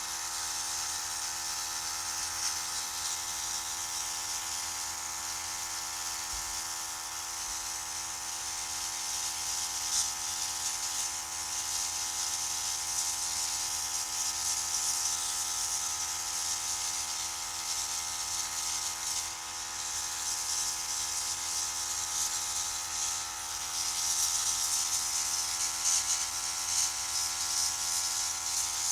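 Small airbrush compressor running with a steady motor hum, under the hiss of air and thinned acrylic paint spraying from the airbrush. The hiss swells about a third of the way in and again near the end as the trigger is pressed harder.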